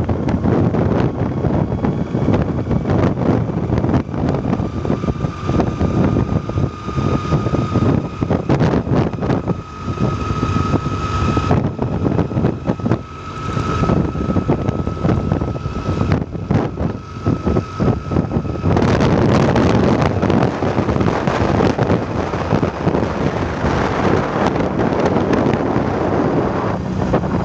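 Strong storm wind blowing against the microphone in gusts. A thin steady tone runs through the middle for about fifteen seconds, and the wind grows louder and denser about two-thirds of the way through.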